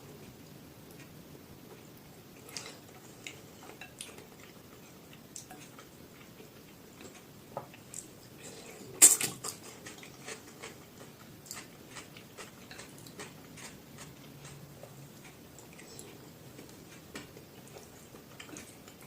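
Close-miked eating sounds: scattered small clicks and smacks of chewing, with one loud sharp clack about nine seconds in.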